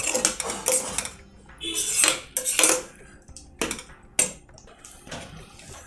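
Metal ladle scraping and knocking against an iron kadai while stirring a thick kootu: a series of irregular short clatters.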